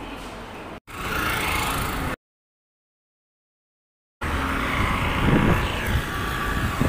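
Spliced clips: faint room tone, a short burst of noise, about two seconds of dead silence, then road traffic noise from about four seconds in, a steady rumble of a moving vehicle on a street.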